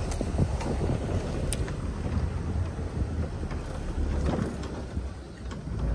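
Ford 4x4 running slowly over a rough dirt track, heard from inside the cab: a steady low rumble from the engine and tyres, with scattered knocks and rattles as the body and suspension take the bumps.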